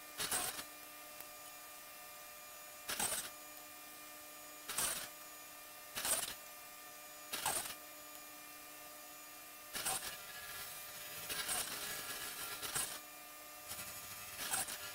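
Table saw running steadily with a hum, its blade cutting thin wooden pieces pushed through on a crosscut sled. About a dozen short cuts come every one to two seconds, closer together near the end.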